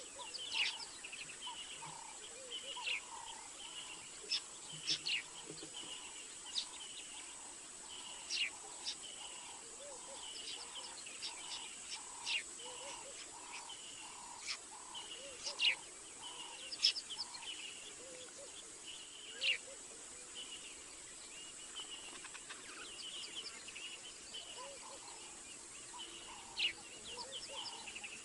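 Night chorus of calling animals: a steady run of low chirps, about two a second, under a high chirring trill, with many short, sharp high calls standing out above it.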